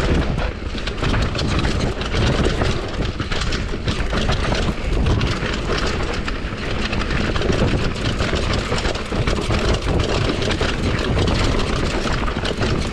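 Wind rumbling on an action camera's microphone during a fast downhill mountain bike run, with tyres on dirt and a Commencal Supreme DH downhill bike rattling over rough ground.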